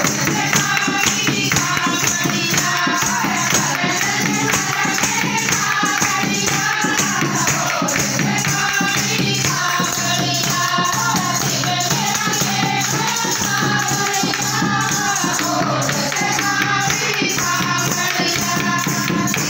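A Hindi devotional Krishna bhajan sung by a chorus of voices over a steady, jingling percussion beat.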